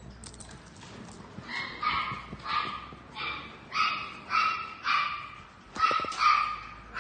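A puppy giving a run of short, high-pitched yips and whines, about two a second, starting about a second and a half in.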